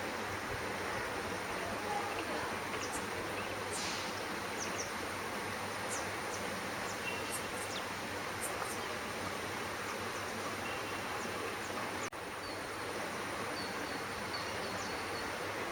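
Steady outdoor background noise: an even hiss with a thin, steady high whine, and short high chirps scattered through it. The sound drops out briefly about twelve seconds in.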